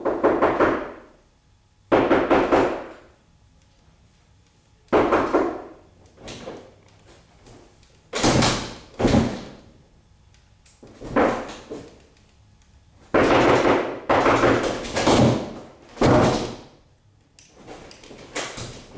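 A wooden door banged hard again and again: about ten heavy slams at irregular intervals of one to three seconds, each with a sharp start and dying away over about a second.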